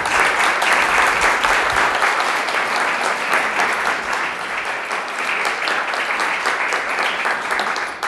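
Audience applauding: steady clapping from a seated crowd that starts right after the call for a warm welcome, then stops sharply near the end.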